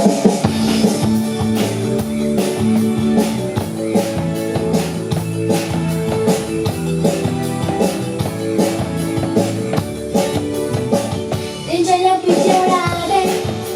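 Live pop-rock band playing with a steady beat on drum kit, bass and guitar. A lead melody line comes in near the end.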